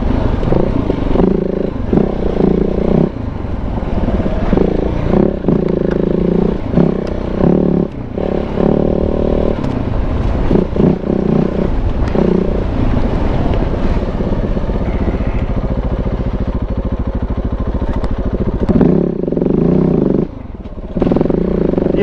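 Big-bore KTM 690's single-cylinder engine under way on a trail ride, its note rising and falling with the throttle and dropping off briefly a few times.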